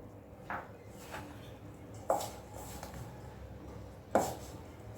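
Wheat-flour chapati dough being mixed in a bowl with milk, marked by four short, sharp knocks against the bowl; the loudest come about two and four seconds in.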